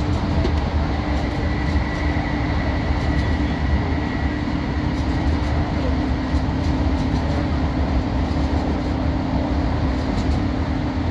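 Passenger train running at speed, heard from inside the carriage: a steady rumble of wheels on the rails with a low, even hum.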